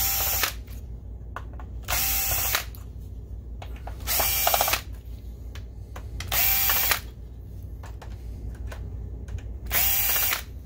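Cordless drill-driver backing out five screws: five short runs of the motor, each under a second, about two to three seconds apart, each with a steady whine.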